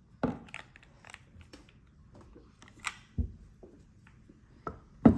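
Mode Envoy mechanical keyboard with lubed Cream+ switches and GMK ABS keycaps being typed on: scattered, irregular single keystrokes, with a louder stroke near the end.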